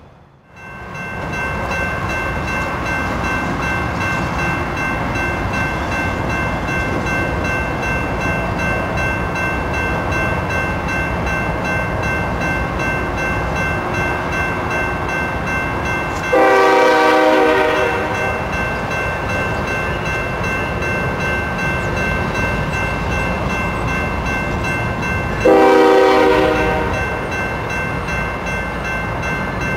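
Canadian Pacific diesel freight locomotive and its train approaching with a steady rumble and a steady high whine. The air horn sounds two blasts of about a second and a half each, the first about halfway through and the second near the end, and they are the loudest sounds.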